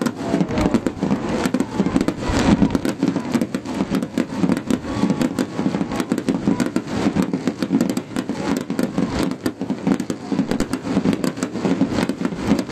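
Fireworks bursting overhead, the golden shells giving a dense, rapid crackling of many sharp pops throughout.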